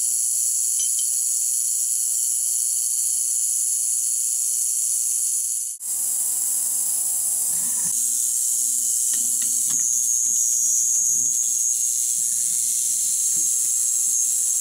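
Crest CP1200D ultrasonic cleaning tank running: a steady, loud, high-pitched hiss of cavitation in glass beakers of cleaning solution, with a faint low hum underneath. It breaks off for an instant about six seconds in and cuts off sharply at the end.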